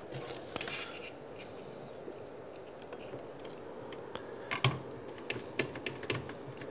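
Small clicks and rattles of crimped wire lugs being handled and fastened into a VFD's screw terminal block with a screwdriver, with the sharpest click about four and a half seconds in and a run of smaller ones after it.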